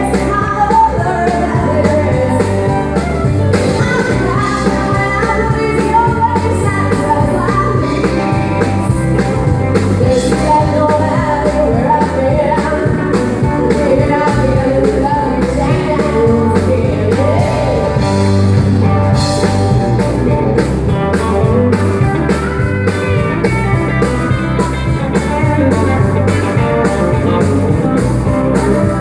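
A woman sings lead in a country song with a live band of electric guitar, pedal steel guitar and drum kit.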